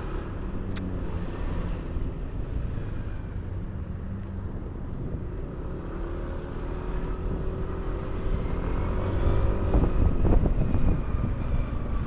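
Yamaha NMAX 155 scooter engine with an aftermarket exhaust, running at low speed in slow traffic among other vehicles, its note rising gradually and growing louder in the second half as it picks up speed.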